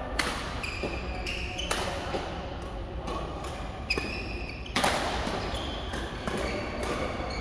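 Badminton rackets striking a shuttlecock during rallies: several sharp hits a second or two apart, the loudest about five seconds in, echoing around the hall. Short squeaks of court shoes on the mat come between the hits.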